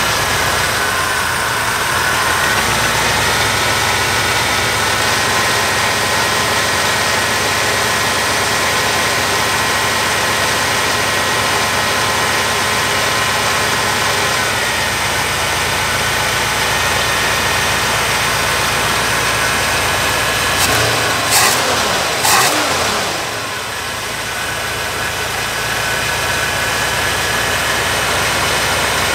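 Small-block Chevy V8 idling under an Edelbrock four-barrel carburetor while its idle screws are turned. The idle pitch steps up about two seconds in and drops back about halfway through. A brief cluster of sharper sounds with a falling pitch comes about twenty-one seconds in.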